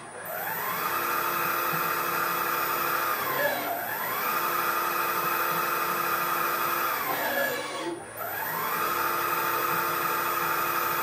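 Servo motor driving the table of a CNC-converted FKM350 milling machine through three traverse moves. Each move is a whine that rises in pitch as the axis speeds up, holds steady, then falls as it slows to a stop.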